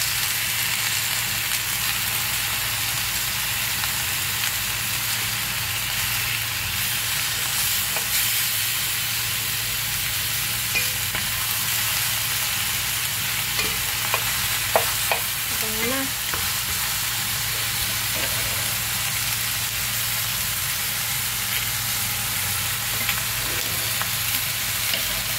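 Lamb shanks and sliced shallots sizzling steadily as they brown in an enamelled cast-iron braiser, with a few light knocks of a wooden spatula turning the meat.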